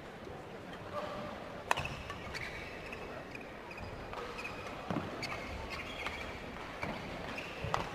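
Badminton rally: sharp cracks of rackets striking the shuttlecock a few seconds apart, with short squeaks of shoes on the court.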